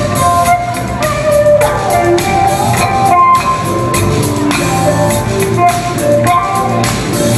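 Live band playing an instrumental passage: a steady drum beat with a melodic lead line wandering over it, recorded from far back in the audience.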